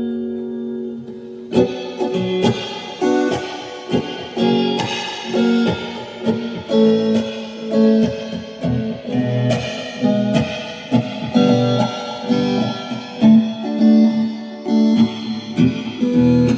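Guitar improvising: a held keyboard chord dies away over the first second and a half, then a steady run of picked notes and short strums.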